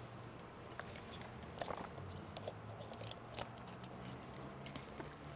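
Quiet room tone: a low steady hum with a few faint, scattered clicks and small handling noises.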